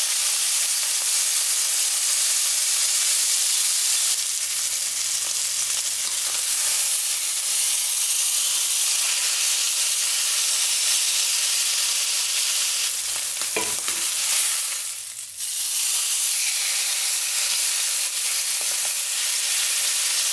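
Beef tenderloin searing in hot oil in a skillet: a steady sizzle as the meat browns, with a brief knock and a short dip in the sizzle about three quarters of the way through.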